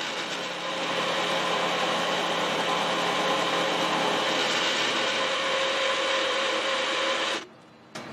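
End mill on a milling machine cutting across the top of a metal bar, a steady cutting noise with a constant whine. It stops abruptly about seven seconds in.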